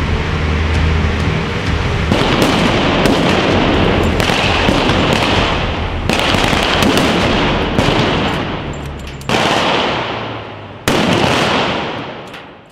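Gunfire from a staged street battle: a dense crackle of many shots, with sudden louder bursts about every two seconds that each trail off, fading out at the end.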